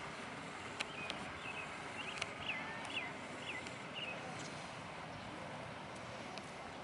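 A bird giving a quick run of short chirps for about three seconds, over a steady outdoor noise, with a few sharp clicks.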